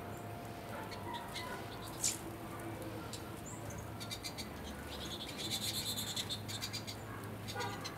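High chirps and clicks of small animal calls, with one sharp chirp about two seconds in and a fast clicking trill a few seconds later, over a steady low hum.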